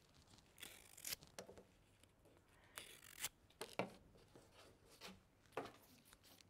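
Faint scraping and tearing of phormium leaf pieces being worked by hand, a handful of short strokes spread out with quiet between them.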